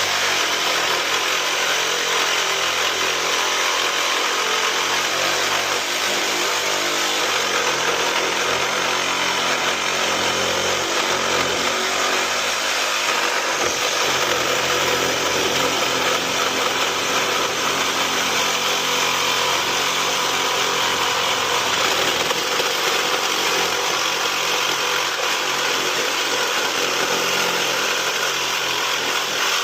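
A handheld power cutting tool running steadily through one long, continuous cut in the metal of a tankless water heater.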